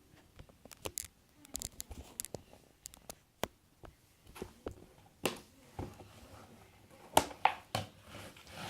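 Scattered sharp clicks and light taps of small plastic containers and caps being handled and set down on a table, with the loudest few clustered near the end.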